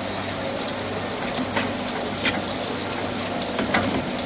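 Steady hiss and low hum of running EVA sole-moulding machinery, with a few light knocks as sole blanks are pressed into a metal mould.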